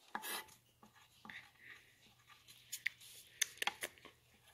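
Faint scratching of a drawing stroke on paper, in short separate strokes, with a few sharper ticks about three to four seconds in.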